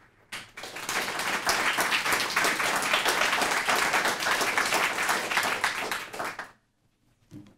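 Audience applauding: dense clapping from many hands that begins just after the start and stops fairly abruptly about six and a half seconds in.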